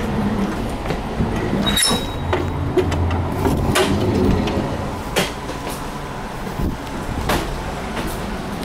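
Interior of a 221 series electric multiple-unit car: a steady low hum with a faint steady tone from the car's equipment, and scattered sharp clicks and knocks. A louder low rumble comes in around three to four seconds in.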